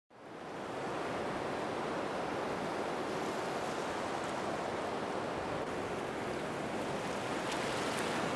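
Ocean surf washing onto a beach: a steady rushing noise that fades in at the start.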